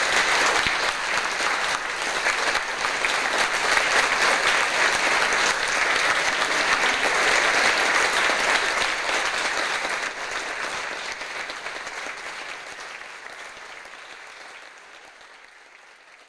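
Audience applauding, a dense steady clapping that fades away over the last five seconds or so.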